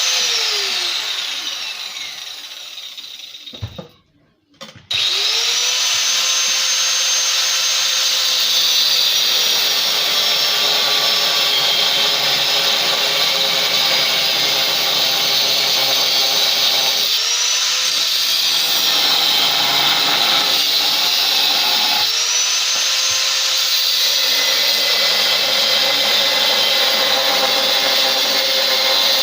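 Angle grinder with a cutting disc cutting tube. Its high whine falls away and stops about four seconds in, then it starts again and runs steadily, its pitch sagging and recovering twice later on.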